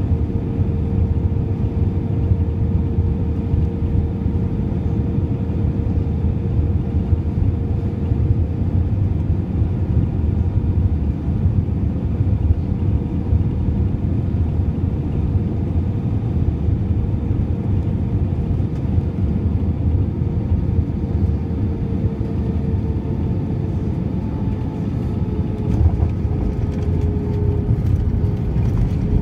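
Cabin noise inside an Airbus A320 with IAE V2500 engines, landing and rolling out on the runway: a steady low rumble with a steady hum that dips slightly in pitch near the end.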